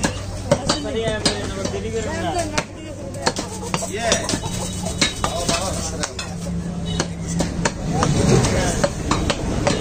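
A butcher's cleaver chopping beef on a wooden log chopping block: a run of irregular sharp knocks, with voices in the background.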